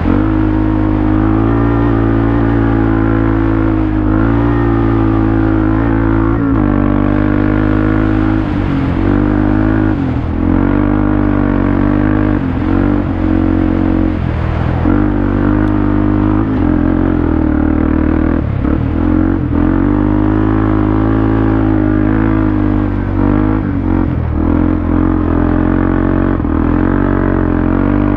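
Off-road vehicle engine running hard along a dirt track, its pitch rising and falling with the throttle and dropping briefly several times as the rider eases off or shifts.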